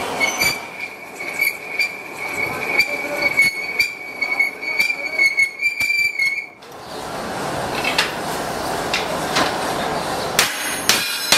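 Lathe cutting tool squealing against a spinning steel disc harrow blade: a steady high squeal with scattered clicks that cuts off suddenly about six and a half seconds in. The lathe then runs on with an even machine noise and a few sharp metal clinks near the end.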